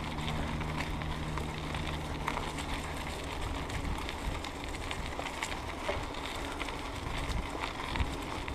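Mountain bike tyres rolling over a leaf-covered dirt trail: a steady rushing noise dotted with small crackles and rattles, with a faint steady low hum underneath.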